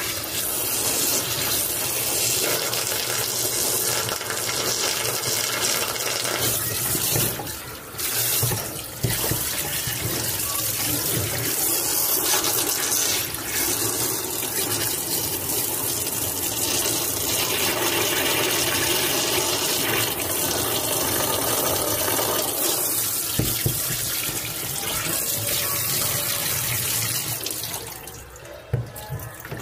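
Water running and splashing into the inner tub of a top-loading washing machine while a hand scrubs the tub floor around the spin-shaft hub. The flow is steady, breaks briefly twice about seven to nine seconds in, and dies away near the end.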